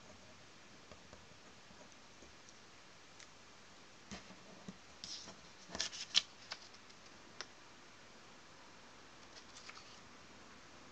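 A sheet of drawing paper being handled: a cluster of short rustles and clicks starting about four seconds in and lasting about three seconds, loudest around the middle, then a few faint rustles near the end, over a faint steady hiss.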